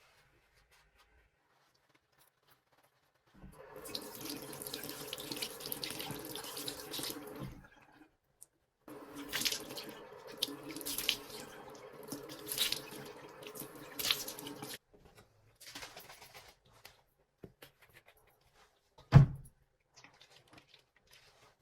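A water tap runs into a sink for about four seconds, stops, then runs again for about six seconds with splashes in the flow. Afterwards come a few small knocks and one sharp, loud knock.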